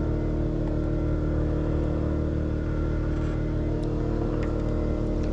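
Boat engine running at a steady speed.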